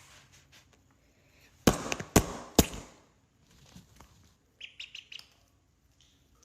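A bird chirping in short high notes, with three sudden loud noises close together about two seconds in.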